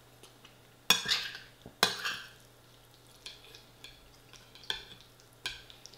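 Close-up eating sounds: two loud sharp mouth and utensil noises about one and two seconds in, then light clinks and scrapes of a fork against a ceramic bowl of chilli and rice.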